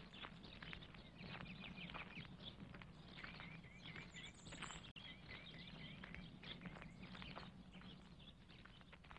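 Faint footsteps of people walking on a lane, with small birds chirping in short rapid trills twice in the middle; the sound fades out near the end.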